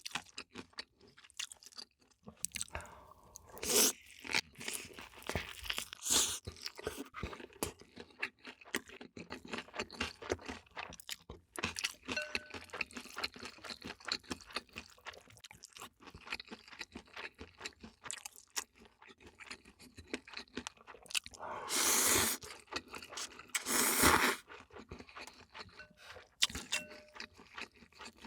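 Close-miked chewing and crunching of food by a person eating, with many small crackles, and two louder rushing sounds of about half a second each, a couple of seconds apart, late on.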